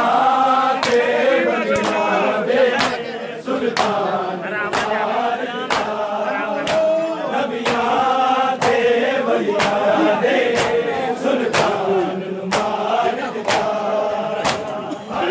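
A crowd of men chanting a Punjabi noha (Shia lament) in chorus. Sharp slaps of hands striking bare chests (matam) land together on the beat, about once a second.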